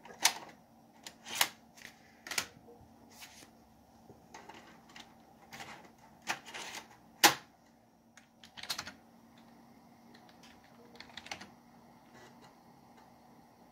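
Scattered clicks and knocks of a floppy disk being swapped in and out of the drive and a few keystrokes on the computer keyboard, the loudest click about seven seconds in.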